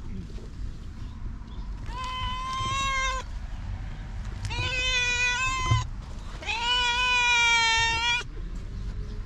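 Tortoiseshell cat meowing: three long, drawn-out meows, the last the longest and loudest, with a brief knock just after the second.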